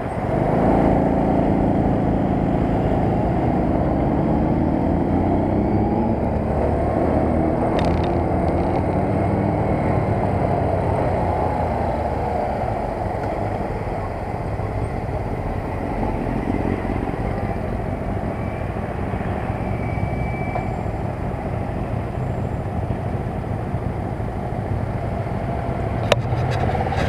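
Engine of a JSD100 Chinese cub-style moped (97cc) running under way, mixed with wind and road noise; it picks up just under a second in and its pitch shifts over the next several seconds, then eases slightly around fourteen seconds in. A few sharp clicks near the end.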